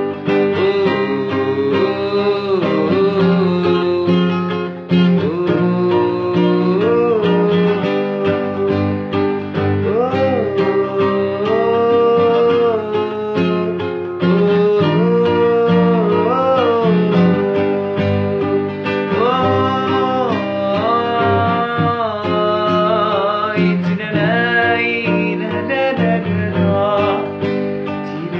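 Instrumental music: plucked strings with a gliding melodic lead line over a steady accompaniment.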